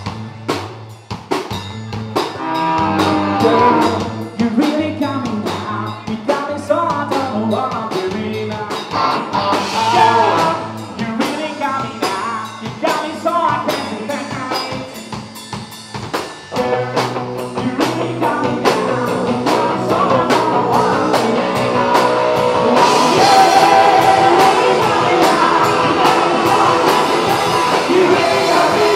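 Live rock band playing: drum kit, electric guitar and bass guitar through amplifiers, with a singer. Drums and bass carry the opening seconds before the full band comes in, and the music changes to held chords past the middle and grows louder near the end.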